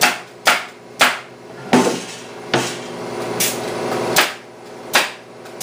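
Pneumatic staple gun firing staples into the wooden sides of a bee hive box: about eight sharp shots in quick succession, a little under a second apart, as the box is closed up.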